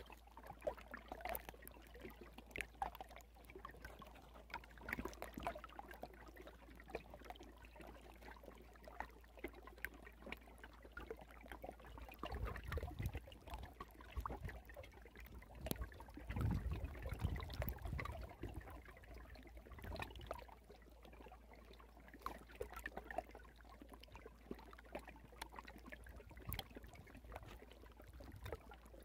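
Faint moving water, trickling and lapping with many small irregular splashes, swelling louder a couple of times about halfway through.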